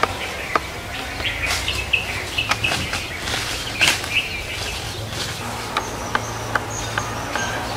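Small birds chirping in short, scattered calls, with sharp crackles of dry leaves and twigs underfoot as someone moves through undergrowth.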